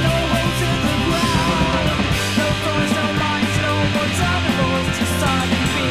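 Rock band music: electric guitar over a steady bass line, with drum and cymbal hits keeping a regular beat.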